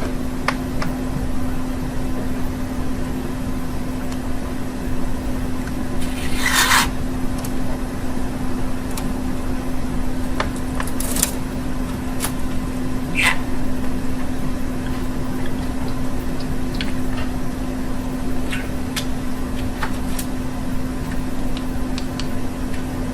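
Budgerigar giving short, scattered chirps over a steady low hum and background noise, the loudest call about six and a half seconds in.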